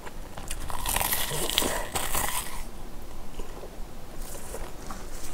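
Close-up biting into a mouthful wrapped in a dry sheet of roasted seaweed (gim): a crisp crunching crinkle starting about a second in and lasting about two seconds, then softer chewing with small clicks.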